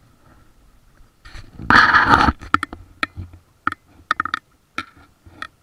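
Water splashing and slapping close to the microphone as a raft floats through choppy river water. There is one loud splash about two seconds in, then a string of short, sharp slaps.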